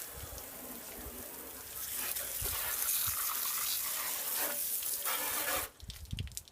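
Water spraying onto a window air conditioner's dirty coils to rinse them, a steady hiss that cuts off suddenly near the end.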